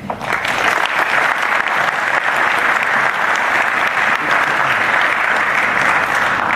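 Audience applauding in a large hall, a dense steady clapping that begins right after a speaker's closing "thank you" and starts to die away near the end.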